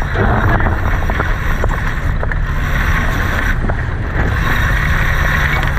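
Steady wind buffeting the microphone aboard a sailboat under way, with water rushing along the hull.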